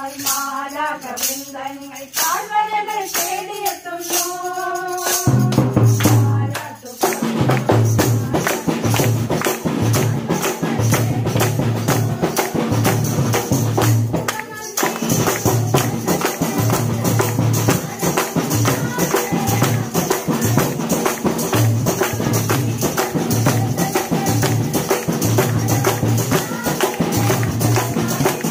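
Group carol singing with a tambourine jingling along. About five seconds in, a large drum joins in a steady beat, and drum and tambourine then carry on loudly, with the singing faint beneath.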